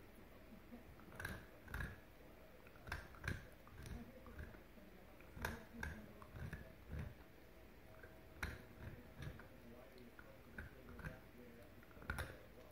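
A small dog gnawing a bone: irregular crunches and clicks of teeth on hard bone, a few per second at times, with pauses between.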